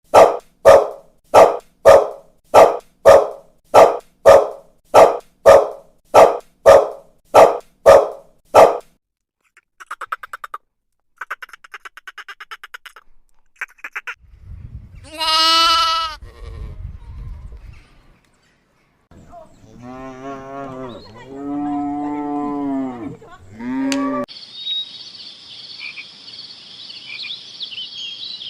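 A run of different animal calls one after another. First come loud, evenly spaced calls, about two a second, for the first nine seconds. Then come fainter rapid pulsing, one long drawn-out call, and several shorter calls that waver in pitch. A steady high hiss follows near the end.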